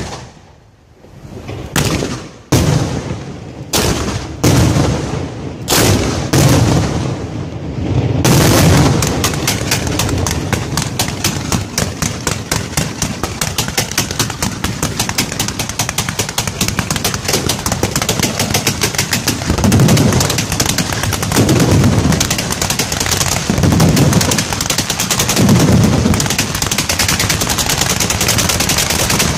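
Fireworks firing at close range from the launch site. First comes a series of single sharp bangs, each ringing out. After about eight seconds a dense, rapid, continuous barrage of reports takes over, with heavier deep thumps every couple of seconds near the end.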